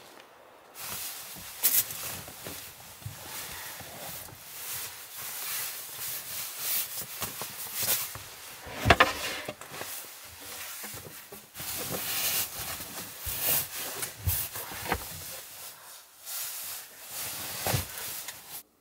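Sleeping bag being unrolled and spread out by hand, its synthetic fabric rustling and swishing irregularly, with a few sharper knocks and thumps as it is handled.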